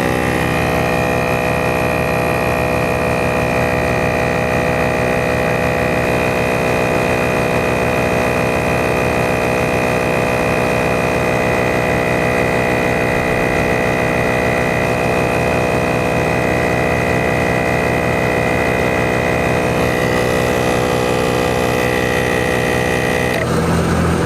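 ARB 12-volt portable air compressor running steadily under load, inflating a car tyre through a dual-hose gauge, with a high whine over the motor's hum. The whine drops out about a second before the end.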